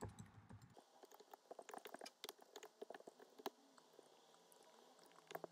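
Faint, quick, irregular keystroke clicks of typing on a computer keyboard.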